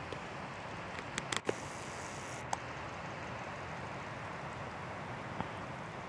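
Steady, even rushing noise with no gusts. A few sharp clicks come about a second and a half in, and single ones later.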